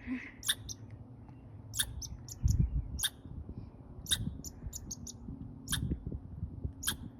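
Short, high chirps from a small animal, about a dozen at uneven intervals, the sound it is praised for as 'music'. A low rumble of handling noise runs underneath, with one louder thump about two and a half seconds in.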